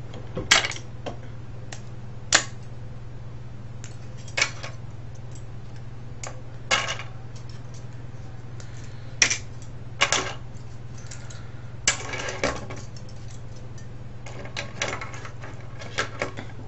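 Sharp clinks and clacks of small metal and plastic parts being handled, dropped and pried loose while a cassette recorder is taken apart for scrap, coming at irregular intervals over a steady low hum.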